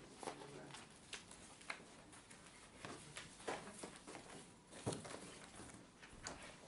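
Faint scattered taps, knocks and rustles of people moving about a small carpeted room and handling things at a table, with one sharper knock about five seconds in.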